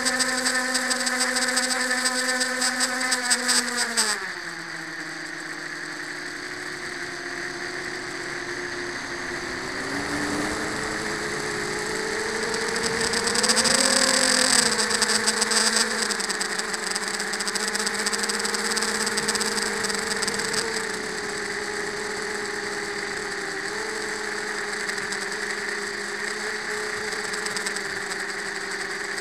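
Racing quadcopter's brushless motors and propellers whining, heard close from the onboard camera. The pitch drops sharply about four seconds in as the motors slow, swells again around fourteen seconds, then holds steady.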